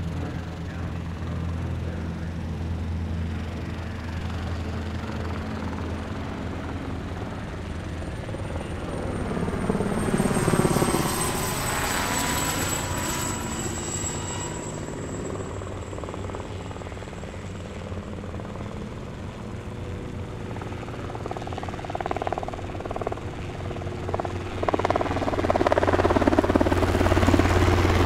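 Small ultralight helicopters' engines and rotors running with a steady drone. It grows louder as one passes overhead about ten seconds in, with a high whine that drops slightly in pitch, and louder again near the end as a single-seat helicopter hovers close by.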